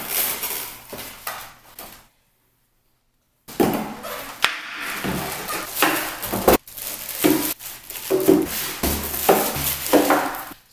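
Unboxing sounds: cardboard box flaps being opened and plastic-wrapped juicer parts rustling as they are lifted out and set down on a wooden table with short knocks. There is a sudden gap of total silence about two seconds in.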